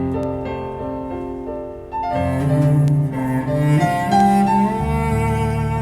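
Instrumental break in a Chinese ballad: sustained bowed strings with piano, with no singing. The music dips briefly and then swells louder about two seconds in.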